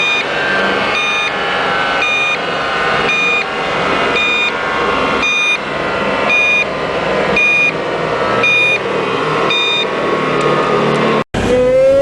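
A short electronic beep repeating about once a second over a running vehicle engine. Near the end the sound cuts off abruptly and a new clip begins with an engine revving up, its supercharger whine rising in pitch.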